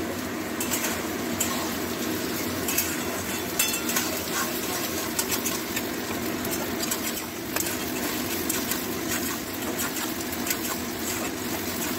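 Onions, capsicum and ginger-garlic paste sizzling steadily in hot oil in a metal wok while being stir-fried, with a metal spatula scraping and clicking against the pan now and then.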